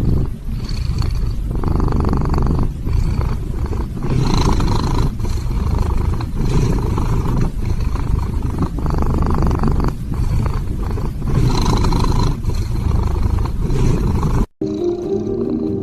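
Scottish Fold cat snoring loudly, like a tractor: a long string of deep snores a little over a second apart. It cuts off suddenly near the end.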